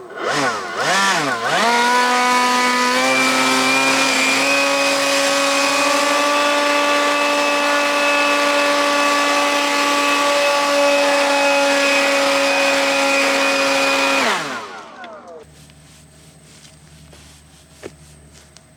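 Small gas engine tool revved a few times, then held at a steady high speed for about twelve seconds before the throttle is released and it winds down about fourteen seconds in.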